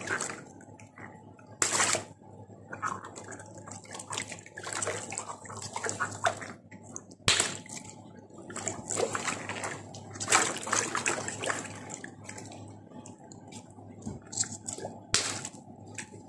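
Water sloshing and splashing in a tub as hands stir and handle water-filled latex balloons, in irregular bursts with a few sharp slaps among them.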